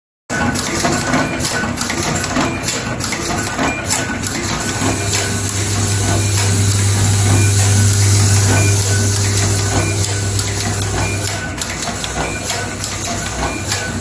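Automatic wire ring-terminal crimping machine running: a stream of quick mechanical clicks and knocks, with a steady low hum joining from about five seconds in until about eleven seconds.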